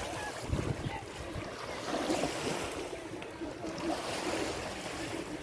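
Small Adriatic Sea waves washing steadily onto a sandy shore, with wind rumbling on the microphone, strongest about half a second in.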